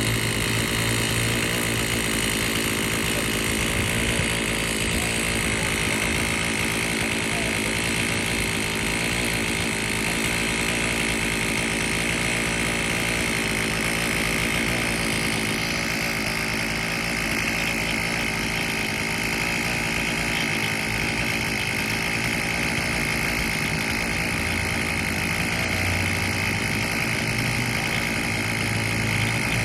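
An engine running steadily at constant speed, with a constant high whine over a low hum.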